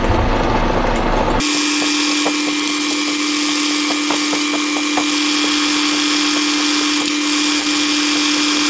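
Metal lathe running while a No. 38 twist drill bores a tapping hole into spinning brass bar stock. About a second and a half in, the sound switches abruptly to tenfold sped-up playback: a steady hum-like tone with a hiss above it and scattered clicks.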